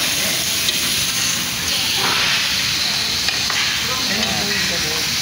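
Samgyeopsal pork belly sizzling on a tabletop Korean barbecue grill: a steady hiss that grows louder about two seconds in.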